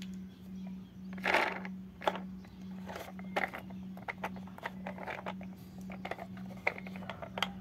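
Hard plastic toy train clicking and knocking against a wooden tabletop as it is handled and set down, with a louder scraping rustle a little over a second in. A low hum pulses about twice a second underneath.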